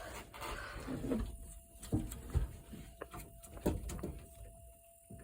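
A bungee strap being worked loose and unhooked: scattered clicks and light knocks with a few low thuds, over a faint steady hum.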